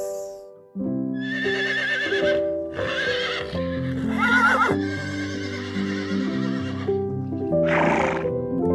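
Horse whinnying: several shaky, wavering calls in the first half, then a short breathy noise near the end, over steady background music.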